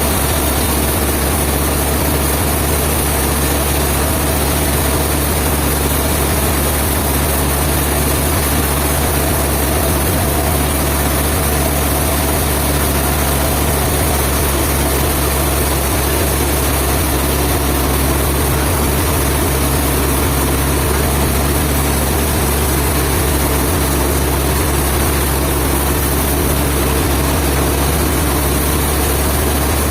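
Sawmill machinery running steadily with an unchanging low engine hum.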